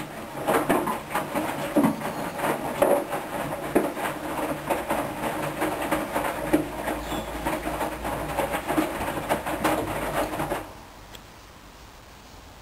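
Hoover washing machine running a rinse: the motor turns the drum with a low hum while the wash inside tumbles and knocks irregularly, then it stops suddenly about ten seconds in.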